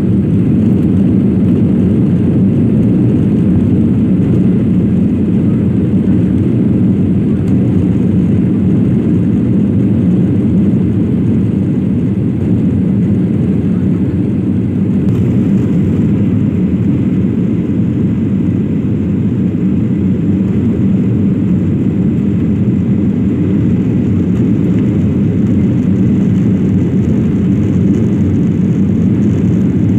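Steady, loud cabin noise of a Boeing 737-800 jet airliner on its landing approach with the flaps extended: the rush of engines and airflow heard from a window seat.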